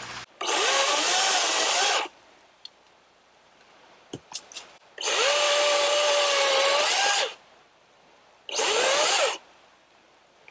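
DeWalt DCM575 FlexVolt battery chainsaw run in three bursts, the longest about two seconds, its electric motor whine rising as each burst starts and falling away as it stops. A few short clicks between the second and third bursts.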